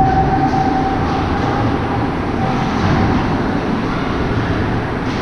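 Steady low rumbling noise of an indoor ice hockey rink during play, with a faint held tone in the first couple of seconds.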